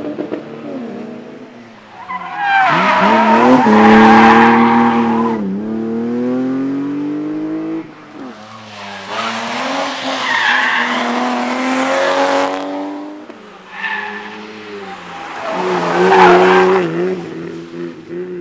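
Rally cars passing at speed, three in turn, each engine revving hard with its pitch climbing, dropping at gear changes and climbing again.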